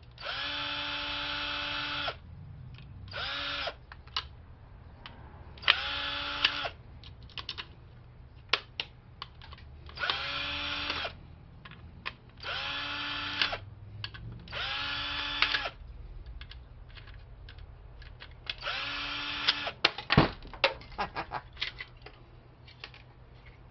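Cordless drill/driver running in about seven short bursts of one to two seconds each, every burst winding up and down, as screws are backed out of a printer being dismantled. Small clicks and rattles of screws and parts come between the bursts.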